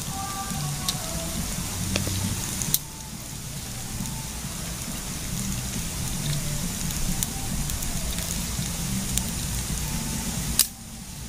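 Oil sizzling steadily in a pan of frying vegetable fritters over a small wood fire, with sharp snaps and crackles from burning and breaking twigs, two of them louder, a few seconds in and near the end.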